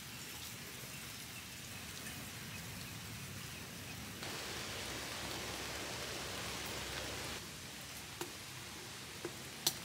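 Steady rain falling, a soft even hiss that grows a little louder for about three seconds in the middle, with a few faint ticks near the end.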